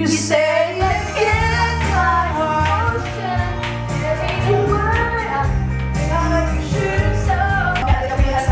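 A woman singing over loud pop backing music with a steady bass line.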